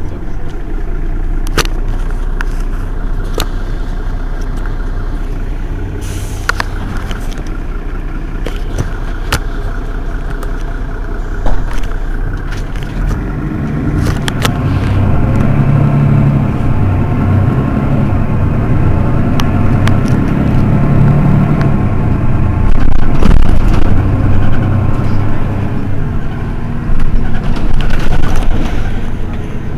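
Diesel engine of a Mercedes-Benz Citaro city bus running while the bus stands still, heard from behind at the engine end, with scattered sharp clicks. About halfway through the engine grows louder, and it is loudest near the end.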